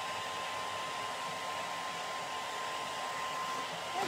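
A hair dryer running steadily: an even blowing hiss with a faint steady whine in it.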